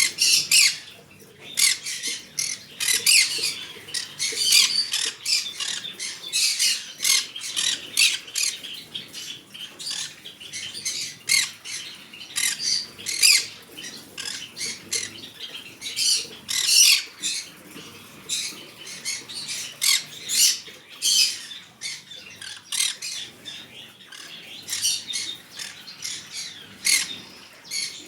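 Green-cheeked conure squawking and chattering in a fast run of short, shrill calls, several a second, with brief pauses between flurries.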